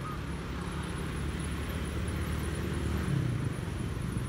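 Steady low rumble of a motor vehicle engine running nearby, swelling slightly about three seconds in.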